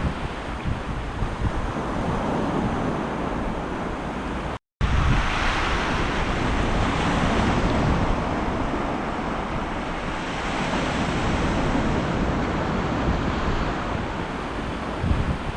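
Sea waves breaking and washing on the shore, with wind buffeting the microphone. The sound cuts out for a split second about four and a half seconds in, then a wave surges up.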